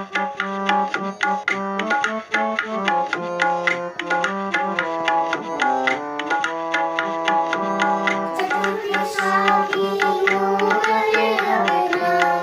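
Shabad kirtan music: a harmonium playing held notes and a melody over regular tabla strokes, with singing coming in about two-thirds of the way through.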